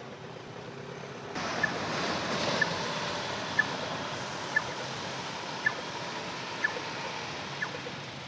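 A Scania K230UB city bus is heard as a broad vehicle noise that rises suddenly about a second and a half in and then slowly fades. Through it, a short high-pitched tick repeats about once a second.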